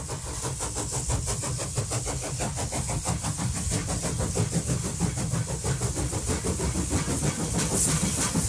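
A locomotive engine running steadily at rest, with a regular fast throb.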